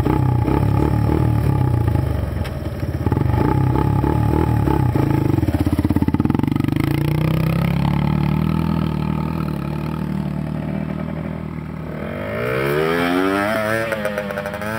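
Dirt bike engines revving as the bikes pull away on a trail. The pitch climbs steadily as one accelerates midway through, then wavers up and down near the end.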